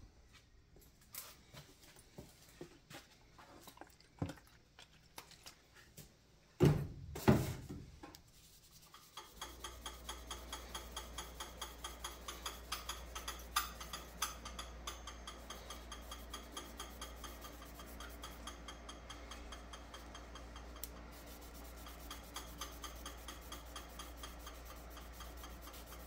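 A wood lathe starts about nine seconds in and runs with a steady low hum. The spinning pen blank is rubbed by hand, likely wiping it with denatured alcohol, giving a rubbing noise with regular ticks about three times a second. Before the lathe starts there are small handling clicks and a loud clatter about seven seconds in.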